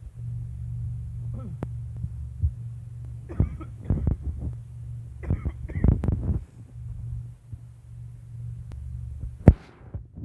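Old electric fan's motor running with a low hum and a steady knocking. A sharp click comes near the end, and the hum then stops.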